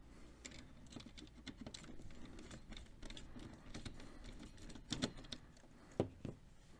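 Screwdriver turning and scraping on the terminal screws of a Square D size 00 starter's overload block as a heater element is taken out: faint, irregular small metallic clicks and scratches, with a few sharper clicks about five and six seconds in.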